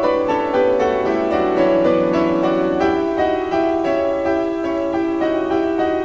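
Background piano music playing held notes and chords.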